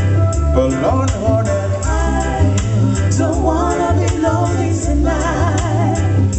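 Live reggae band playing: women's voices singing, with wavering vibrato near the end, over a heavy bass line and a steady ticking beat.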